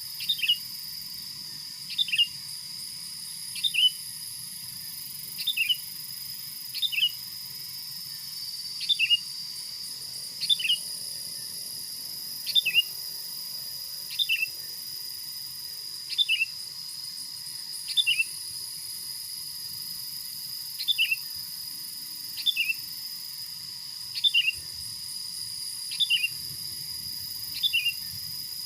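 A short two-note bird call, a sharp falling note and a quick lower one, repeated at a steady pace about every one and a half to two seconds, over a steady high insect drone.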